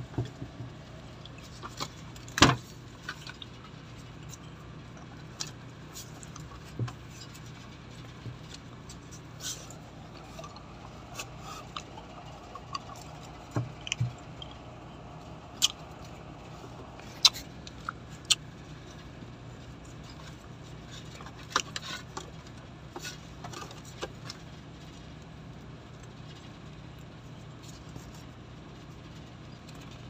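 Scattered clicks, taps and rustles of hands and a phone working among a truck's dashboard wiring harness, over a steady low hum. The sharpest knocks come about two and a half seconds in and again near the middle.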